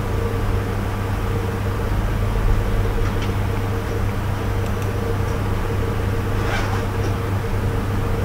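Steady machine hum: a low drone with a fainter higher tone held over a background hiss, with a couple of faint clicks partway through.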